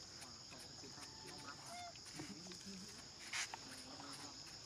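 Steady high-pitched drone of insects, with faint distant voices beneath and one short, sharp noise about three and a half seconds in.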